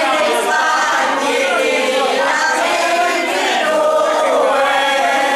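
A group of elderly men and women singing a traditional folk song together in unison, many voices at once.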